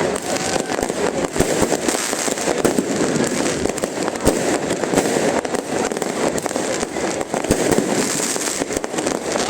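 New Year's Eve fireworks going off densely: many sharp bangs and cracks in quick, irregular succession over a constant din.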